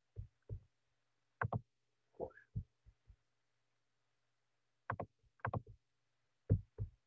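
Irregular thumps and clicks of a computer keyboard and mouse being worked, single strokes and small clusters about every half second to second. There is a short rising squeak a little past two seconds in.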